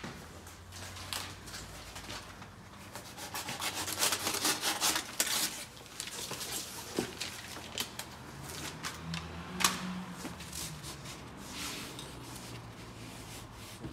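Hands rubbing and pressing a sheet of foam sound insulation onto the plastic inner trim panel of a car door, in a run of scraping, rustling strokes. A sharp click comes about two-thirds of the way through.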